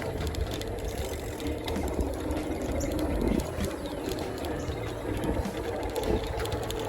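Bicycle ridden along a trail: tyres rolling over the ground with a steady low rumble and a light rattle and ticking from the bike.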